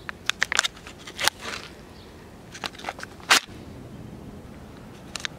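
Plastic lid being peeled off a Lotte Yukimi Daifuku ice cream tray: a run of sharp crackles and snaps in two clusters, the loudest snap about three seconds in.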